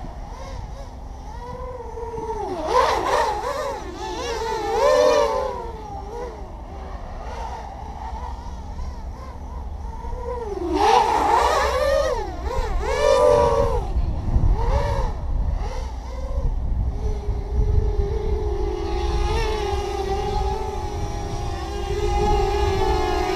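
OFM Hyper 330 racing quadcopter's motors and propellers whining, swooping up and down in pitch as it accelerates and brakes, then holding a steady hum from about two-thirds of the way in as it hovers. A low rumble runs underneath.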